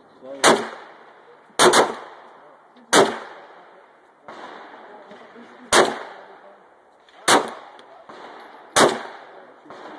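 Glock 17 9mm pistol firing single shots, about seven in all, one to three seconds apart, with two in quick succession about a second and a half in. Each shot is followed by a short echo.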